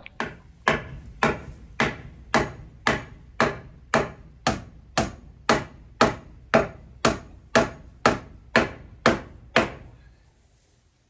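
Hammer nailing a rough wooden barn board into place: about nineteen steady strikes, roughly two a second, stopping shortly before the end.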